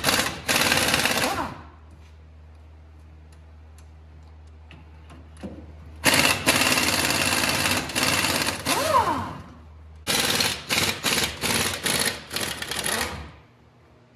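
Impact wrench running in bursts to loosen the U-bolt nuts: a short run at the start, a longer run about six seconds in, then a string of short trigger pulls from about ten seconds. A steady low hum underneath stops near the end.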